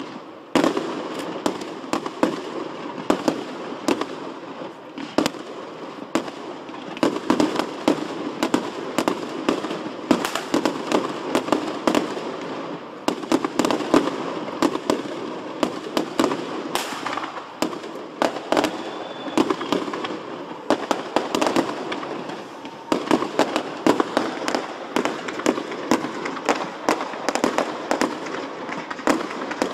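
Fireworks display: aerial shells bursting in quick succession, with many sharp bangs at an uneven rhythm and no break.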